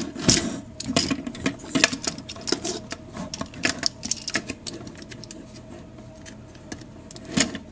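Plastic joints and parts of a Transformers Voyager Mixmaster action figure clicking, rattling and snapping under the hands as its arms and fingers are folded out. The clicks come irregularly, a few louder snaps among them.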